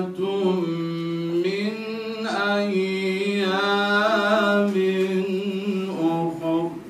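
A man reciting the Quran in a melodic chant, drawing out one long phrase on sustained notes with ornamented turns in pitch partway through.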